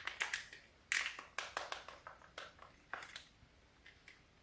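Plastic retractable dog leashes handled, their lock buttons pushed and released: a string of irregular sharp clicks, stronger for the first three seconds and fainter near the end.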